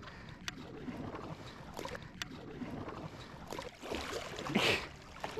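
Water lapping and sloshing around a kayak hull, with a few small sharp knocks, and a louder splash of a paddle blade in the water about four and a half seconds in.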